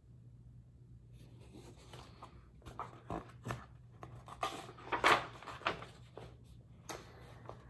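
Paper pages of a picture book rustling and crackling as they are handled and turned, in a string of irregular rustles, loudest about five seconds in.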